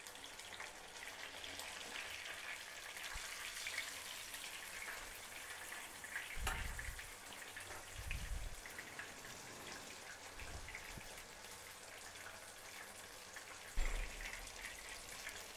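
Masala-coated fish shallow-frying in oil in a nonstick pan over a low flame: a quiet, steady sizzle with fine crackles and pops. A few dull thumps break in, the loudest near the end.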